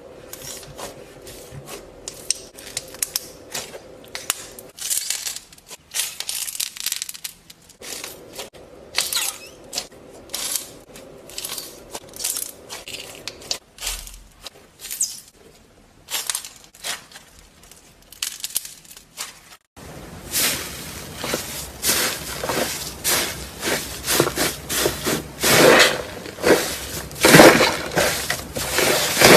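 Crunchy slime being squeezed and pressed by hand, giving an irregular run of crackles and pops. About twenty seconds in the crackling becomes louder and much denser.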